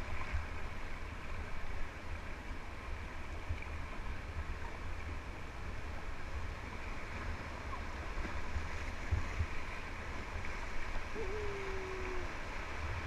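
Fast whitewater river rushing steadily around an inflatable kayak, heard from the kayak's bow, with a low rumble beneath it.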